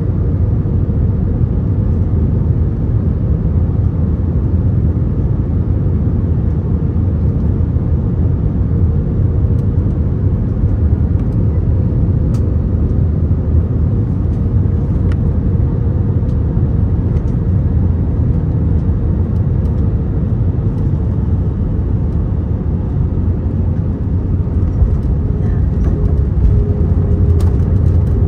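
Steady low rumble of engines and airflow heard inside an Airbus A321 passenger cabin, with a faint steady hum above it.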